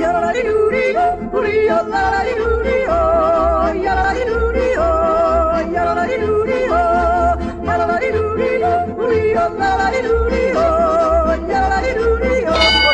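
Background music: a yodeling song, the voice leaping and warbling between notes over a steady bass beat.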